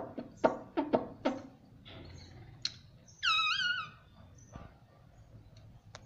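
Indian ringneck parakeet at a mirror: a quick run of sharp clicks as its beak taps against the glass, then a short warbling call with a wavering pitch about three seconds in.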